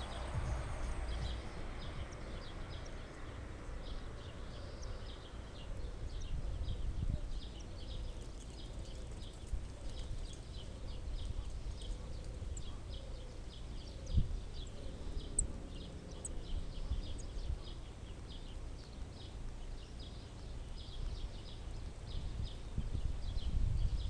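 Spotted flycatcher nestlings begging: a rapid, continuous run of short, thin, high chips over a low rumble, with a single knock about 14 seconds in.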